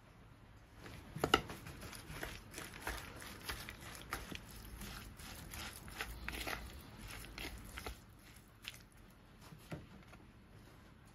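Wooden chopsticks tossing shredded carrots through a thick carrot dressing in a bowl: wet, crackly squishing and small clicks, busiest from about a second in until about eight seconds, then two lone clicks.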